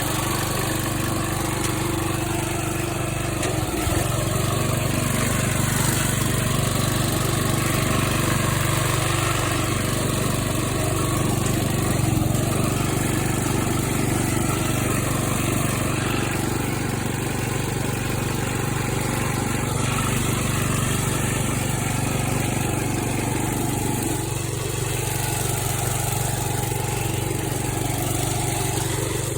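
Riding lawn mower's small engine running steadily, its carburetor just re-tuned after it had been running too lean.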